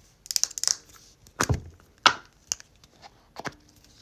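Drunk Elephant Lala Retro Whipped Cream jar being opened and handled: a short crinkly rustle as the lid is twisted, then a knock with a low thud about a second and a half in, followed by a few sharp taps and clicks against the jar.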